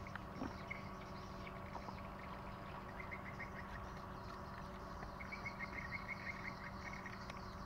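Quiet outdoor ambience: a steady low background noise with two runs of rapid, high chirping, one about three seconds in and a longer one from about five to seven seconds.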